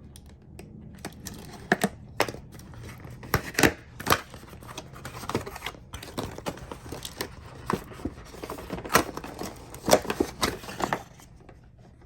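Product packaging being opened by hand: irregular tearing and crinkling with sharp snaps and rustles.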